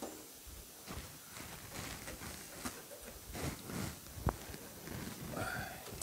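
Faint scuffs, rustles and clicks as a new steel band-saw blade is worked by gloved hands onto the wheels of a Wood-Mizer LT15 Go sawmill, with one sharp click a little past four seconds in.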